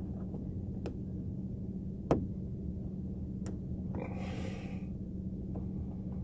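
A few sharp clicks and taps of plastic interior-light parts being handled and fitted, the loudest about two seconds in, over a steady low hum. A short rustle comes a little past the middle.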